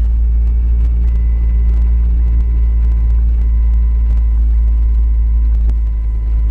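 Steady low rumble of a car driving slowly through deep snow, heard from inside the cabin. A faint steady high whine sits above it from about a second in, with scattered light clicks.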